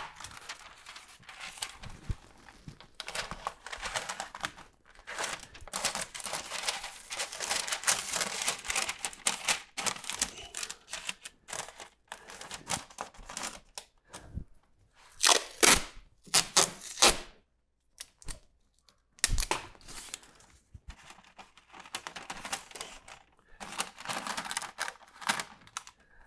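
Masking paper from a hand masker crinkling and rustling as it is handled, pressed and smoothed into a cabinet opening along its taped edge. A few short, louder tearing sounds come around the middle.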